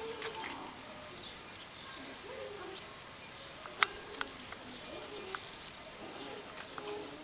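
A small bird chirping: short, high-pitched chirps that fall in pitch, repeated roughly once a second. A few sharp clicks come through the middle of the stretch.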